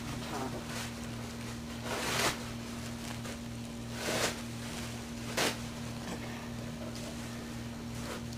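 Towels rustling as they are handled, in a few short bursts, over a steady low electrical hum.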